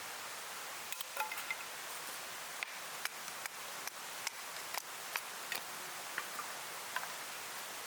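Irregular sharp clicks and pops, roughly two a second, starting about a second in, over a steady hiss.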